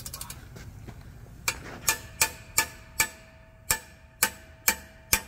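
A hammer striking a long wrench held on a torque converter bolt to break the bolt loose. About nine sharp metallic blows, roughly two a second, start about a second and a half in, each leaving a brief ringing tone.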